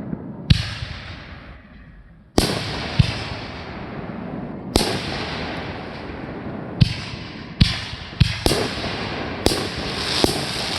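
Fireworks going off: about ten sharp bangs at uneven intervals, with hissing between them and a quick run of small crackles near the end.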